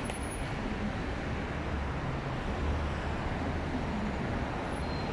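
Steady city traffic noise: an even low rumble with hiss, with no single event standing out.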